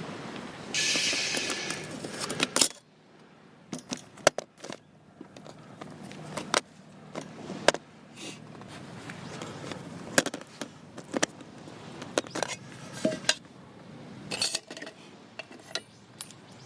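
Metal camp cookware and gear clinking and clattering as it is handled: a string of sharp clinks and taps, with a brief hissing rush about a second in.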